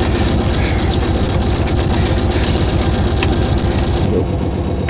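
Motor yacht's engine idling steadily, a low even chugging that eases slightly about four seconds in.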